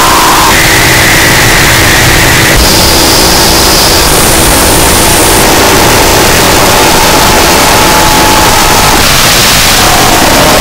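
Harsh noise music: a dense, distorted wall of electronic noise at full volume over a steady low hum. A sustained tone jumps up in pitch in steps every second or so, then falls back to a lower tone near the end.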